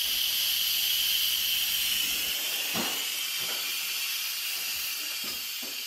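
Electric pressure cooker venting steam through its pressure-release valve: a steady hiss that fades slowly, with a few light knocks about halfway through.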